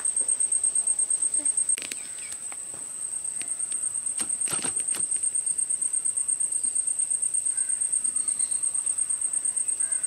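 Steady, rapidly pulsing high-pitched insect trill, dropping briefly about two seconds in, with a few short sharp sounds around two and four and a half seconds in.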